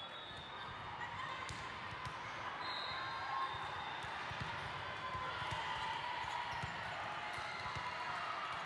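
Volleyball gym din: balls thumping off hands and the floor over and over, under a steady murmur of players' and spectators' voices.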